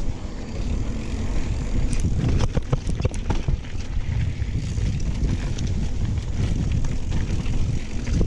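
Mountain bike riding a dirt trail, with a steady low rumble of tyres and wind buffeting the action camera's microphone. A quick run of clattering knocks about two to three and a half seconds in, as the bike rattles over rough ground.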